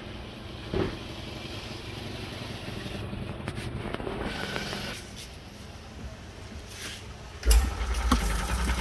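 Car engine starting up about seven and a half seconds in and running on steadily, after a stretch of low background noise with a single knock about a second in.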